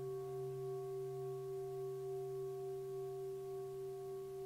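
Quiet singing-bowl drone: several steady ringing tones, one low and a few higher, held without a break and wavering slowly in loudness.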